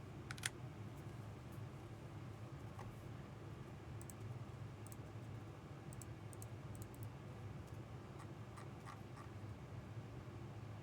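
Faint, scattered light clicks over a steady low hum, with one sharper click about half a second in.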